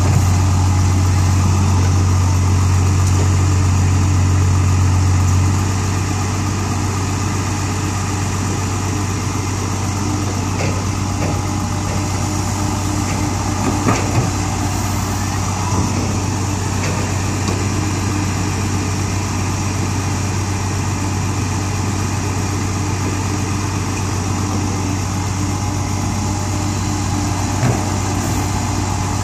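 Diesel engines of a Komatsu hydraulic excavator and a dump truck running steadily. The low drone steps down in level about five seconds in. A few knocks come midway and near the end as dirt and rocks drop from the bucket into the truck's steel bed.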